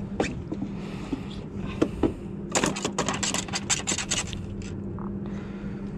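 A landing net and a freshly netted speckled trout being handled on a boat deck: scattered clicks, then a dense run of rapid scraping and clicking for about a second and a half starting two and a half seconds in. A steady low hum runs underneath.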